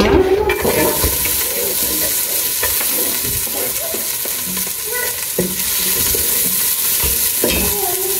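Onions sizzling as they fry in a large cooking pot. The sizzle starts suddenly about half a second in and then holds steady, with a utensil scraping and knocking in the pot as they are stirred.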